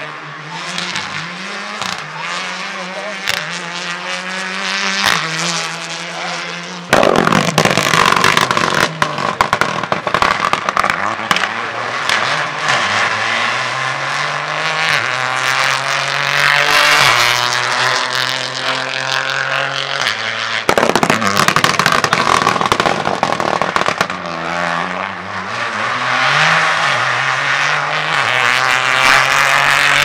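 Rally car engines running hard on a stage, their pitch climbing and dropping through gear changes and lifts off the throttle. The sound jumps much louder about seven seconds in as a car comes close, and there is another sudden loud rush a little past twenty seconds.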